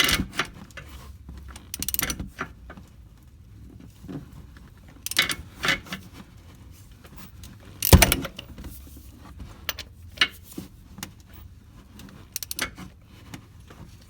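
Scattered metallic clicks and clanks as a Toyota Camry 2.4 L engine's crankshaft pulley is turned by hand with a wrench to release the lock on a freshly fitted timing chain tensioner. The loudest is a sharp knock about eight seconds in.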